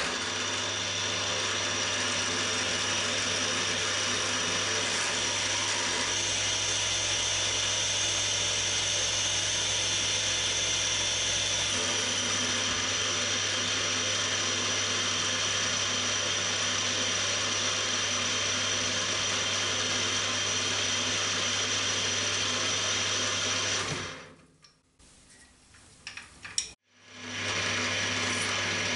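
Cormak ZX 7045 mill-drill running steadily while a bit drills holes in an aluminium plate, a constant motor-and-gear hum with a high whine. It stops about 24 seconds in, a single click follows, and near the end the mill runs again with a 9 mm HSS slot drill at 580 RPM.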